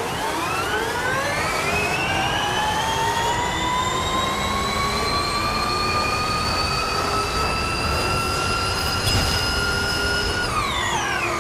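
A motor's whine climbs steeply in pitch over about two seconds, keeps creeping higher while held, then drops quickly near the end.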